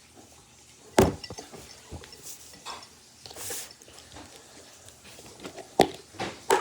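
Small objects being handled: a few sharp knocks and clinks, one about a second in and others near the end, with a brief hiss near the middle.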